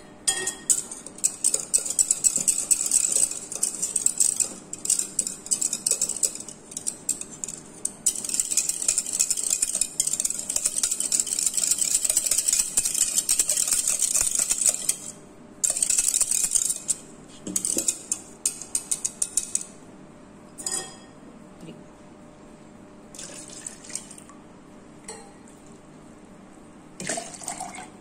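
A utensil beating yogurt in a plastic jug: fast, dense clicking and scraping against the jug wall for about fifteen seconds, then a few shorter spells of whisking, then only scattered taps through the last third.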